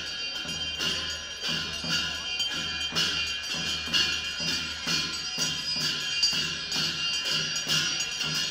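Tamang folk dance music played on percussion: drum strokes and ringing metal percussion keep a steady beat of about two strokes a second.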